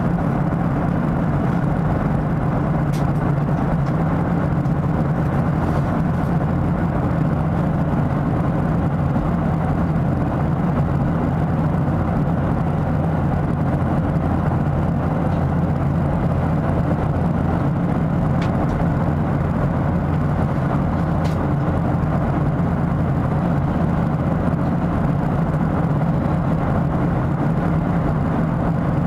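Steady low cabin drone of a Boeing 737-700 in flight, the rush of airflow and the hum of its CFM56-7B engines as heard from a window seat.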